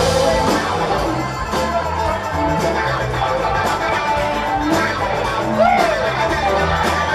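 Live band playing: drums keep a steady beat of about two hits a second over a bass line, with the rest of the band filling in above.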